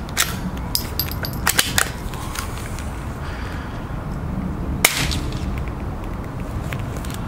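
Suppressed Savage .22 rifle with an AAC Aviator suppressor firing a subsonic round: a single short, sharp report about five seconds in, with a few lighter clicks in the first two seconds over a steady low rumble.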